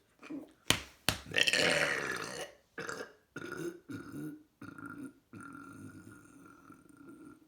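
A person burping over and over: a long, loud burp about a second and a half in, a run of short burps, then one long drawn-out burp near the end. Two sharp clicks come just before the loud burp.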